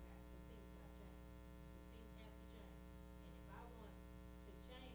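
Near silence: a steady electrical mains hum, with faint voices in the distance.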